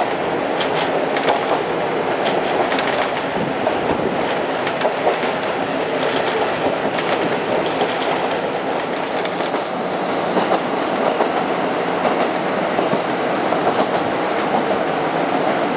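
Diesel railcar running along the track, heard from inside the carriage: a steady running noise with the wheels clicking over rail joints.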